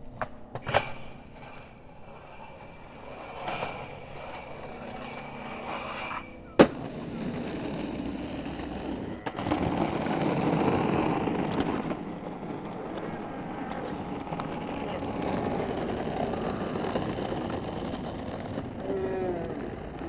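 Skateboard on a steel handrail: a couple of sharp clacks as the board pops onto the rail, then the trucks grinding along the metal with a steady ringing scrape, ending in a sharp slam about six and a half seconds in. A steady rough noise follows for the rest.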